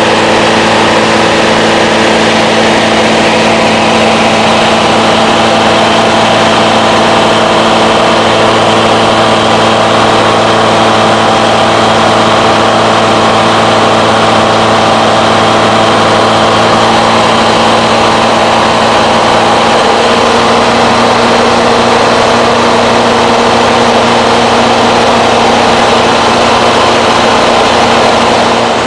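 Kitfox light aircraft's piston engine and propeller droning steadily in cruise flight, heard from inside the cockpit with a rush of air over the cabin. The engine note shifts slightly about two-thirds of the way through.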